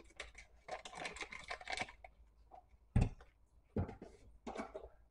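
Paper wrapper being peeled off a stick of butter: dry rustling and crinkling over the first two seconds, with more rustling near the end. Two dull knocks come about three and four seconds in.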